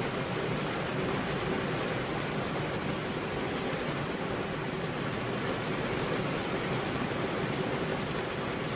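Heavy rain falling steadily on a road, an even hiss with no thunder.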